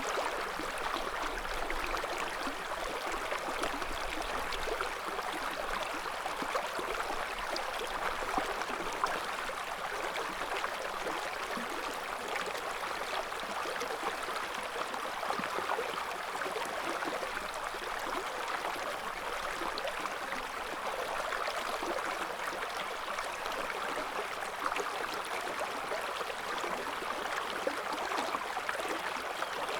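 River water flowing steadily over stones: an even rushing babble with small splashes and trickles throughout.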